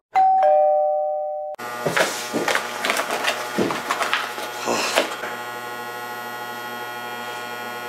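A two-note falling chime, like a doorbell's ding-dong, lasting about a second and a half. Then a refrigerator's loud steady hum, with rustling and clicks as a paper burger box is opened and handled for a few seconds.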